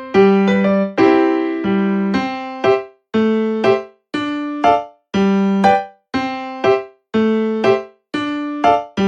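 Background music: a light electric piano tune, notes and chords struck about once a second and fading between strikes.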